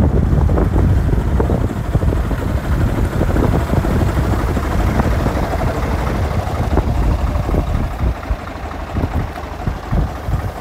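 Scania R500 truck's diesel engine idling with a steady low rumble.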